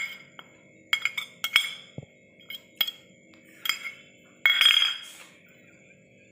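Kitchenware clinking and tapping against the rim of a bowl as chopped coriander is tipped in: a scattering of short, sharp clinks with a brief ring, and one longer, louder clatter about two-thirds of the way through.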